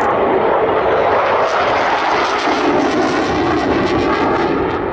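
Eurofighter Typhoon fighter jet flying overhead on its twin EJ200 turbofans in afterburner: loud, steady jet noise with a crackle through the middle.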